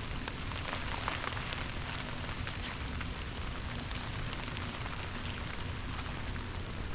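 Rain falling on forest leaves: a steady hiss with many scattered, irregular ticks of single close drops.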